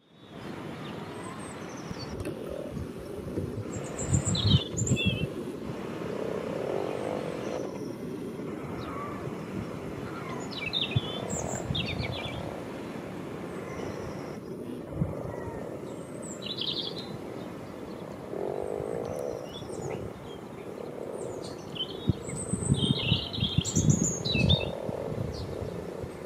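Breeding chorus of common frogs: soft, low purring croaks that rise and fall, among masses of frogspawn. Small birds chirp throughout, and gusts of wind buffet the microphone, loudest about four seconds in and again near the end.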